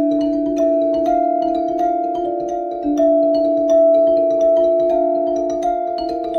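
Background music: held chords with new struck notes coming in every second or so, over light ticking percussion.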